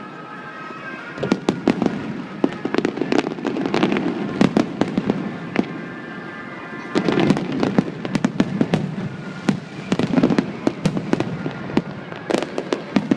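Aerial fireworks going off in volleys of sharp bangs and rapid crackling, dense clusters about every two to three seconds with brief lulls between.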